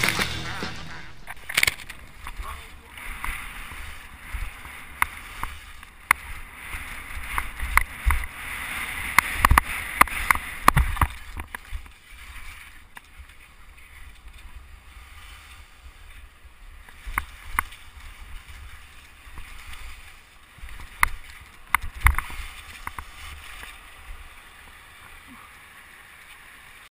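Skis sliding and scraping over snow, heard through a helmet or chest camera with wind rumbling on its microphone. Scattered sharp knocks and clatters come through, the loudest about a third of the way in and again about 22 seconds in. A backing song fades out in the first second.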